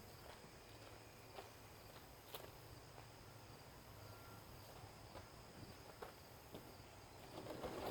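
Near silence, with a few faint scattered clicks and knocks and a louder stretch of rustling and knocking near the end.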